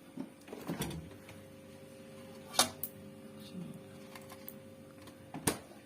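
A steady hum, from the Sharp two-door refrigerator running, under a few sharp clicks and knocks. The loudest click comes about two and a half seconds in, with another near the end.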